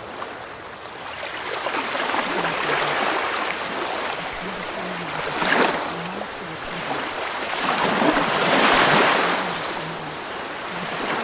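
Ocean surf washing in and out in slow swells, one cresting about halfway through and a longer one near the end.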